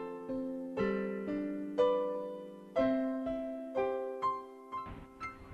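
Background piano music: soft notes and chords struck about once a second and left to ring out.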